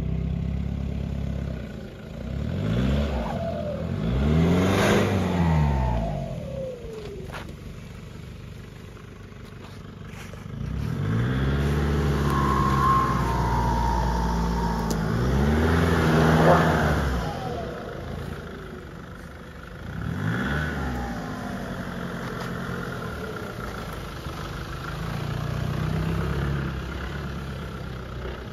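Nissan Patrol Y61's 3.0-litre diesel engine revving up and down in four throttle bursts, its pitch rising and falling each time, with steadier running between.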